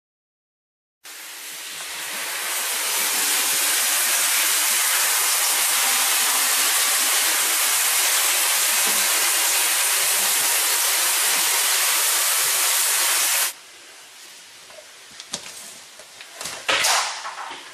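Hand-held hair dryer blowing with a loud, steady hiss. It starts suddenly, builds for a couple of seconds and is switched off abruptly about thirteen seconds in, followed by a few quiet knocks and rustles.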